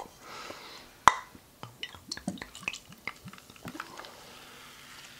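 Soda being poured from a glass bottle into plastic cups. There is a sharp click about a second in, then scattered small ticks and drips.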